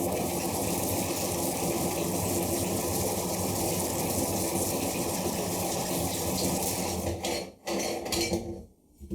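Electric meat grinder's motor running steadily with a constant hum. It cuts out briefly about seven and a half seconds in, runs again for a moment, then stops near the end.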